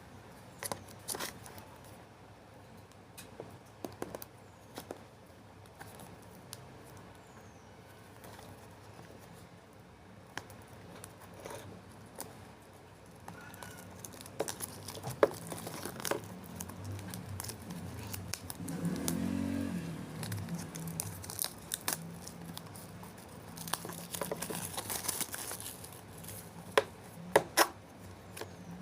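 A smartwatch box and its packaging being handled and opened by hand: scattered clicks and taps, with crinkling and tearing of wrapping, busiest in the second half.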